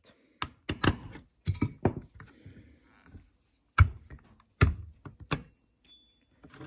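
A series of about nine sharp, irregular metal taps and knocks as the cross pin holding the trigger group of a Savage Model 170 pump-action rifle is driven out, with a short faint ring near the end.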